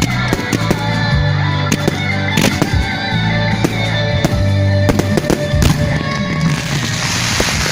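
Fireworks going off in a rapid, uneven series of bangs over loud music. About six and a half seconds in the music falls away and a dense crackling takes over.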